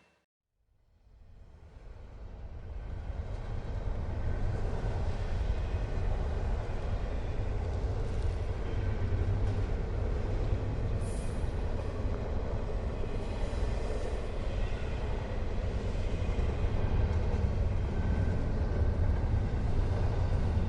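Steady low rumble of a train running on the rails, fading in over the first few seconds after a brief moment of silence.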